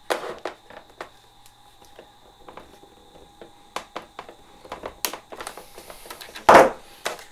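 Side cutters clicking and snipping at a plastic zip tie inside a foam model airplane's fuselage, with scattered small clicks of handling and a louder knock about six and a half seconds in.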